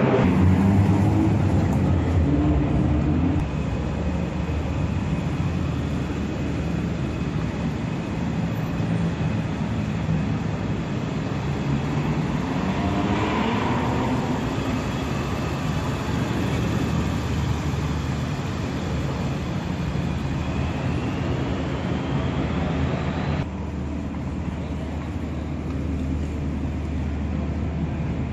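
Car engines running and revving inside an enclosed underground roadway, a steady rumble with changing rev pitches. About twenty seconds in, one engine revs up steadily and the sound cuts off suddenly.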